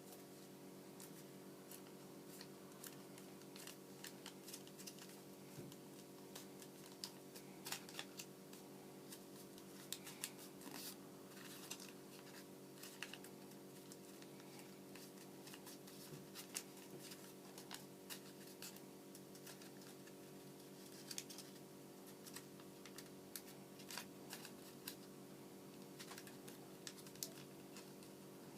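Origami paper being folded and creased by hand: irregular soft crinkles and small taps scattered throughout, over a faint steady hum.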